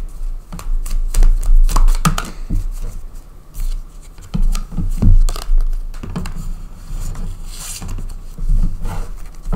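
Tarot cards being shuffled and handled close to the microphone: uneven flurries of quick clicks and scrapes of card against card.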